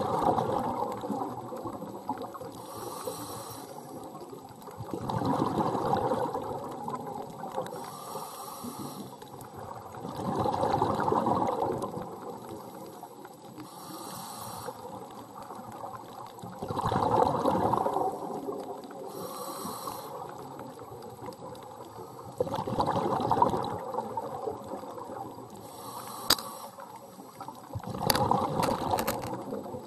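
Scuba diver breathing through a regulator underwater: a thin hiss on each inhale, then a louder rush of exhaust bubbles on each exhale, five breaths about six seconds apart. A faint steady hum runs underneath, with a sharp click near the end.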